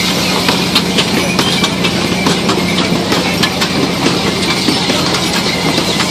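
Kiddie pony-cart ride running: a steady mechanical rumble with a constant hum, overlaid by frequent clicks and rattles from the wooden carts and their wheels.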